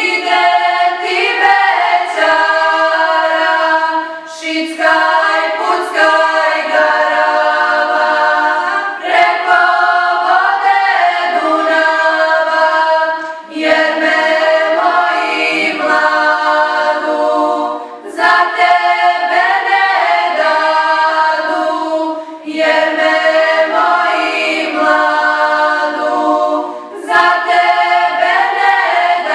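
Girls' folk vocal ensemble singing a cappella in several parts, in phrases of about four to five seconds, each followed by a brief break for breath.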